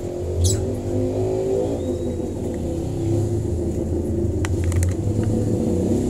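A motor vehicle's engine running, a steady low rumble that wavers slightly in pitch. A few short sharp clicks come about four and a half seconds in.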